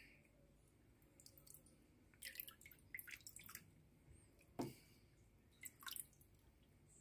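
Near silence, broken from about two seconds in by a scatter of faint water drips and small splashes in a shallow plastic tub, with one slightly louder soft knock about halfway through.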